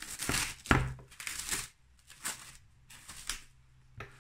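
Plastic cling film crinkling and rustling as it is peeled back off a glass baking dish, busiest in the first second and a half, then a few scattered crackles.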